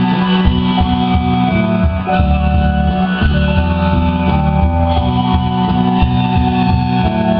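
Live rock band playing an instrumental passage: electric guitar lines over sustained bass notes, without singing.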